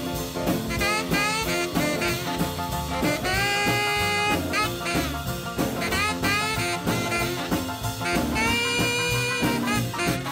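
Instrumental break of a rock and roll song: a saxophone solo over the band with a steady beat.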